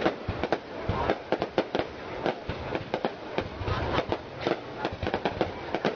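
Aerial fireworks display: shells bursting overhead in a rapid, irregular run of sharp bangs, several a second.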